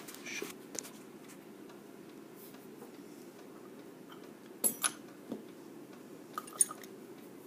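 A few short, sharp metallic clicks and taps from handling a pin-tumbler lock and its key or pick: a pair of clicks a little before the five-second mark and another pair about two seconds later, over a low steady hum.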